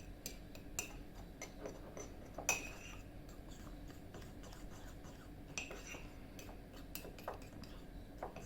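A fork stirring dry ingredients in a mug: a quick run of light clinks and scrapes against the sides of the mug, with a few louder knocks scattered through.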